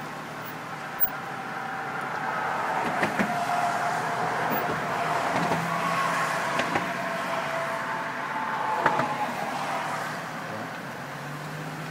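Road noise from a car driving across a bridge: steady tyre and engine noise that swells for several seconds in the middle, with a few sharp knocks.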